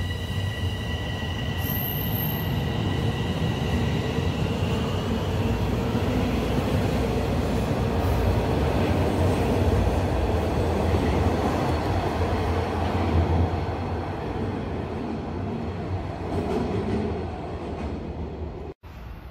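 Bombardier Toronto Rocket subway train pulling out of an underground station. A high steady tone fades out over the first few seconds while the rumble of the departing train builds, is loudest about halfway through, then dies away. The sound cuts off abruptly near the end.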